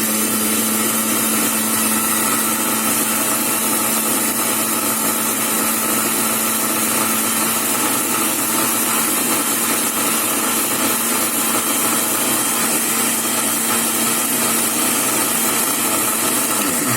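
Electric mixer grinder (mixie) motor running at a steady full speed, blending curd, water and sugar into lassi in its jar. It is switched off near the end and its pitch falls as the motor spins down.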